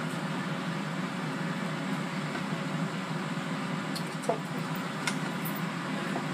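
Steady fan whir of a Power Air Fryer XL cooking. A plastic rice paddle stirs mashed potatoes in a rice cooker's metal pot, giving a few light clicks and a brief squeak about four seconds in.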